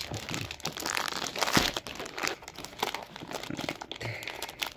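Wrapper of a Reese's Pretzels Big Cup crinkling as it is worked open by hand, a quick irregular crackle.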